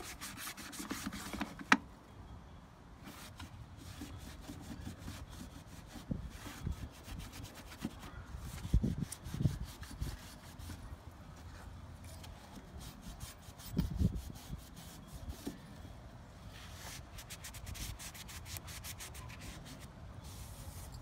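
Microfiber towel rubbing and scrubbing along a car's door jamb in irregular strokes, wiping off degreaser that has been left to soak into the grime. There is a sharp click near the start and a few dull bumps partway through.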